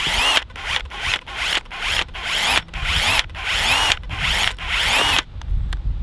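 Cordless drill boring a hole through a plastic number plate in short pulses of the trigger, about two a second. The motor's whine rises and falls with each pulse as the bit cuts into the plastic.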